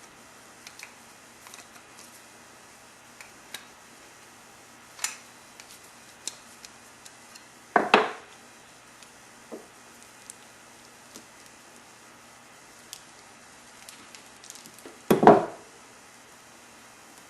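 Small metallic clicks and clinks from a chain breaker tool and roller chain being handled, with two louder handling noises of about half a second each, one about eight seconds in and one near the end.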